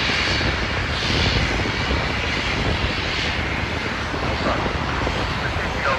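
Aer Lingus Regional ATR 72's twin turboprop engines and propellers running as it taxis, a steady engine noise with a high whine that swells and fades about once a second.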